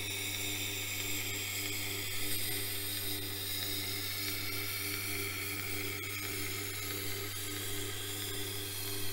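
Sharpening machine's motor humming steadily while a knife blade is drawn along the turning felt honing wheel, hissing lightly, to take the burr off the freshly ground edge.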